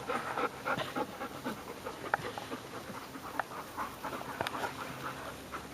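Several dogs panting, with scattered light clicks and ticks.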